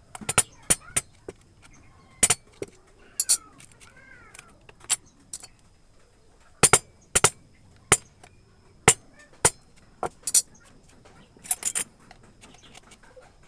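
Hand carving in wood: a carving chisel tapped with a mallet, giving sharp, irregular knocks, sometimes two in quick succession, with short pauses between runs.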